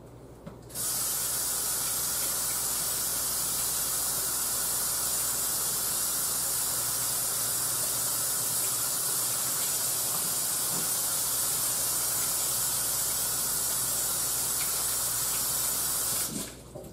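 Water running steadily from a kitchen sink faucet while hands are washed. It turns on about a second in and shuts off near the end.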